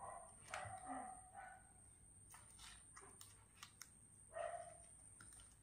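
Near silence: faint crinkling and ticks of a banana-leaf packet being tied up with string, with faint animal cries about a second in and again near the end.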